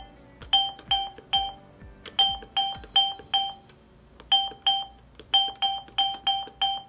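Hyosung ATM keypad beeping once with each key press, about fifteen short identical beeps in three quick runs with faint key clicks. The keys are being pressed repeatedly to step through letters while a message is typed.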